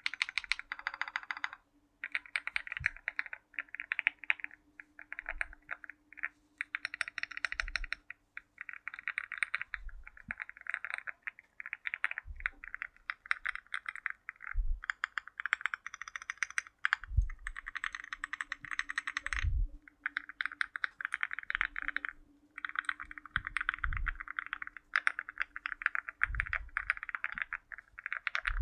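Lucky 65 v2 mechanical keyboard with MOA-profile Pink Cupid keycaps being typed on quickly, in runs of rapid keystrokes broken by short pauses. Deeper thuds come every couple of seconds among the clicks.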